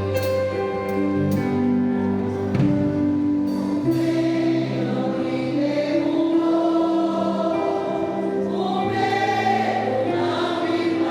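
Church choir singing a gospel hymn over held instrumental chords, the voices coming in more strongly about four seconds in.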